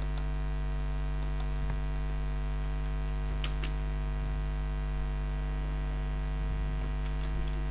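Steady electrical mains hum picked up in the recording, with one faint click about three and a half seconds in.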